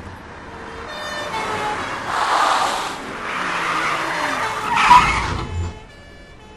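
Car tyres skidding and screeching with engine noise as a car takes the road at speed, the noise swelling twice, then a sudden loud crack about five seconds in.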